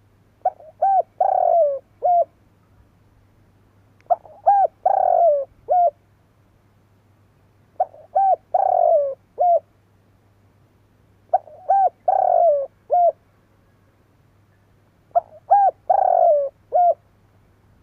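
A spotted dove (Streptopelia chinensis) singing its cooing song: five repeated phrases, each a few short coos around a longer, louder middle coo, spaced evenly about three and a half seconds apart.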